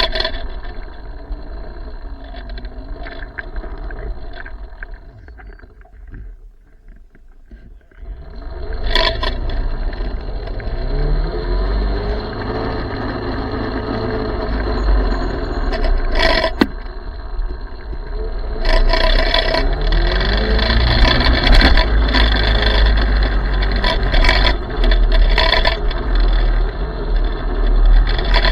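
Small electric mini motorcycle being ridden, its motor whine rising in pitch several times as it speeds up, over heavy wind rumble on the microphone and scraping tyre noise. It goes quieter for a couple of seconds about six seconds in.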